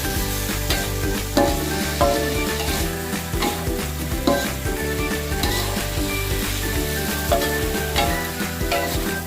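Sambal terong (eggplant, tomato and chili) sizzling in hot oil in a pan while a spatula stirs it, with irregular scrapes and knocks against the pan.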